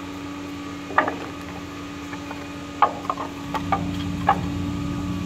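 Wooden boards knocking against each other, the asphalt and the end of a tow truck's tilted steel flatbed deck as they are laid into a makeshift ramp: a sharp knock about a second in, then a cluster of knocks between about three and four and a half seconds. A steady engine hum runs underneath.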